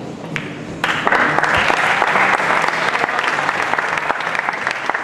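Audience applauding in a large hall, starting suddenly about a second in and continuing, easing off slightly near the end.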